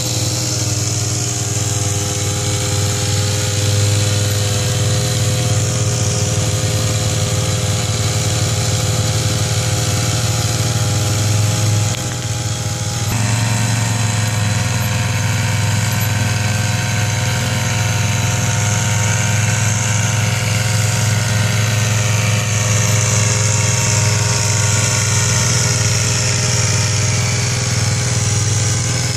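Small petrol engine driving a trailed sprayer's pump, running steadily together with a quad bike's engine, with a high hiss of spray from the boomless nozzle. The engine note shifts abruptly about 13 seconds in.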